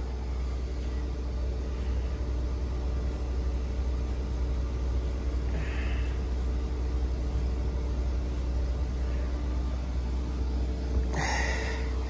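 Outdoor condenser fan of a Carrier Infinity inverter heat pump running with a steady hum and low rumble, with the compressor unplugged so that only the fan runs. A brief rustle near the end.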